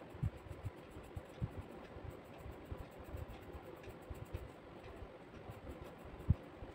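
Pencil drawing on sketchbook paper: faint scratching strokes of graphite, with irregular soft low knocks of the hand and pencil against the pad. The loudest knock comes about six seconds in.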